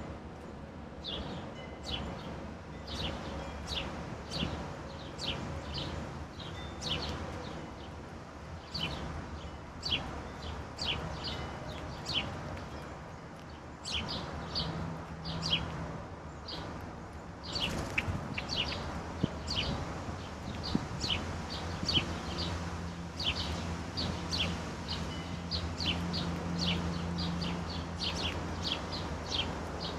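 Garden songbirds calling, a long series of short, high, sharp notes at about two a second. A low steady hum sits underneath, stronger from about halfway.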